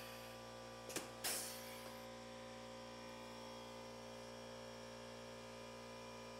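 Pneumatic rivet gun setting a rivet: a sharp snap about a second in, then a short hiss of air that fades. A steady low hum runs underneath.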